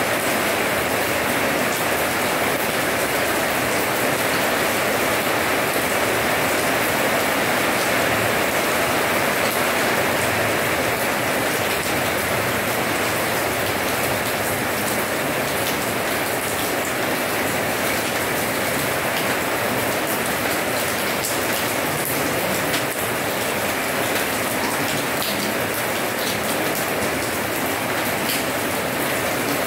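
Steady rain falling on wet paving blocks: an even, constant hiss with scattered drop splashes.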